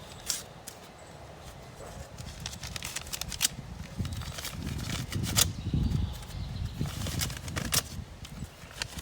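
A package being opened by hand: irregular sharp crackles, taps and rustles of tape and packaging, with a low rumble of handling noise in the middle.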